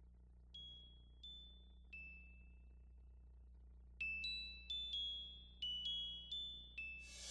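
Quiet high bell-like chime notes opening a song: three single ringing notes, then a quicker run of about eight notes, each dying away briefly. A short rushing swell comes in near the end. A faint low hum lies underneath.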